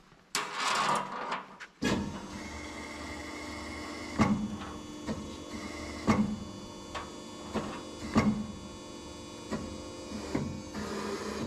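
A Hydroscand hydraulic hose crimping machine switches on about two seconds in and runs with a steady electric-pump hum, crimping a ferrule onto a brake hose. Sharp clanks break the hum every second or two.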